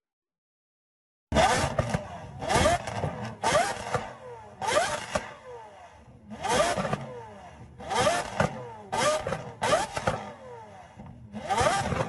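A Lamborghini supercar's engine is revved hard in repeated sharp blips, starting about a second in and coming roughly once a second, about nine times. Each rev rises and then falls away.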